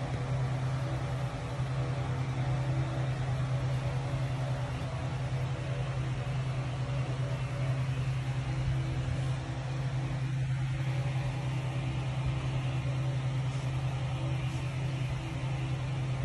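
Steady low mechanical hum of a running machine, a constant drone with a few fixed higher tones above it.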